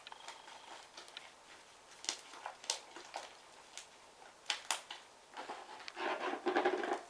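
Slime mixed with shaving gel being stirred and worked, giving scattered sticky clicks and squelches, then a louder stretch of dense squishing near the end.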